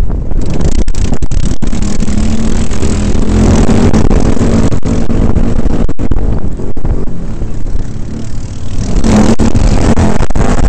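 Quad bike (ATV) engine running under way, heard loud and close with wind buffeting the microphone. The engine eases off past the middle and picks up again near the end, and the sound cuts out for an instant several times.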